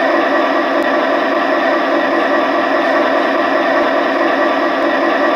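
Diesel engine running sound from the DCC sound decoder of an LGB Southern Pacific SD40 G-scale model locomotive, played through the model's small onboard speaker while the locomotive stands still. The sound is steady and even, thin with little low end.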